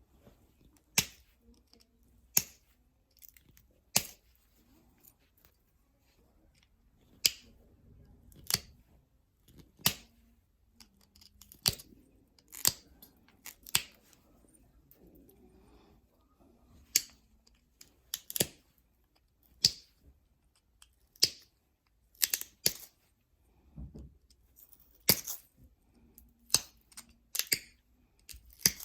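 Novaculite being flintknapped: a series of sharp, irregular clicks, about one a second and some in quick pairs, as flakes snap off the stone under the knapping tool.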